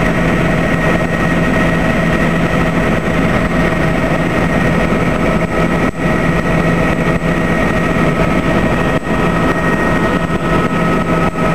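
Helicopter engine and rotor noise heard from inside the cabin in steady cruising flight: a loud, unchanging drone with several steady high whining tones over it.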